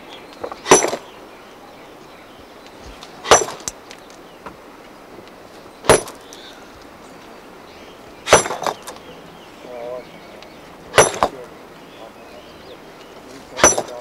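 Hand hammer striking a rock to break it, six sharp blows evenly spaced about two and a half seconds apart.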